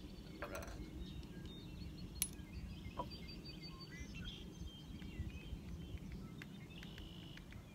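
Outdoor ambience: a low, steady rumble of wind on the microphone with scattered faint bird chirps. A single sharp click comes about two seconds in, and a fainter click about a second later.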